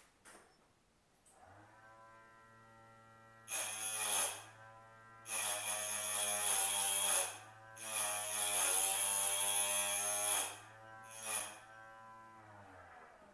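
Electric Proform piston ring filer starts up and runs with a steady whine. The end of a top compression ring is pressed against the spinning abrasive wheel four times in short grinding bursts, the longest about three seconds, taking metal off to open the ring's end gap. The motor is then switched off near the end and winds down.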